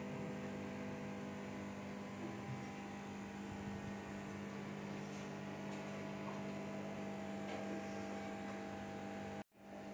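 A steady low electrical hum over faint room noise, cutting out briefly near the end.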